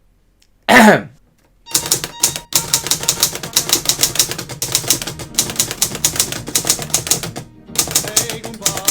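Olivetti Lettera 22 portable typewriter typing on a note card: a fast run of sharp key strikes, about five a second, with a brief pause near the end. About a second in comes a short, loud sound that falls in pitch.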